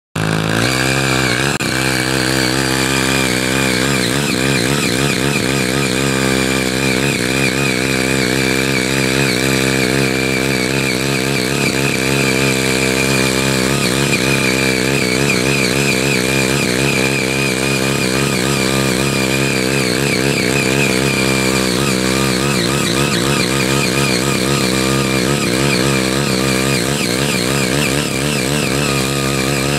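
Small petrol engine of a CY80 mini power tiller running under load while its sabre-blade rotary tines till the soil. It revs up within the first second or two, then its pitch keeps rising and falling as the load changes.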